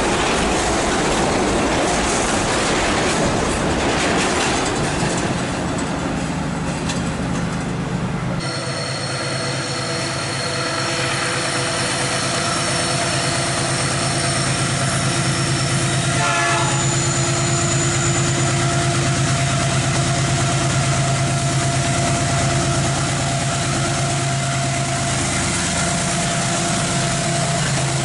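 Empty freight wagons rolling past with clattering wheels and rumble. Then, after a sudden change, the steady hum of a GE diesel locomotive's engine as it approaches, leading an empty train up the mountain grade.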